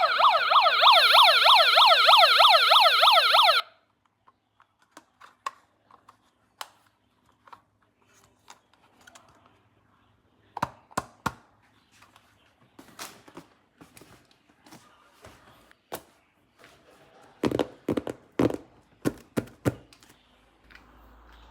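Police-style electronic yelp siren sweeping rapidly up and down, loud, cutting off suddenly about three and a half seconds in. After it come scattered sharp clicks and knocks of toy parts being handled, thicker near the end.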